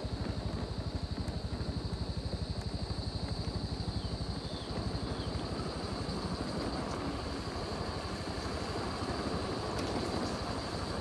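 Motorcycle riding down a steep wet concrete road: engine and road noise, with wind buffeting the microphone in a fast flutter that smooths out about halfway through.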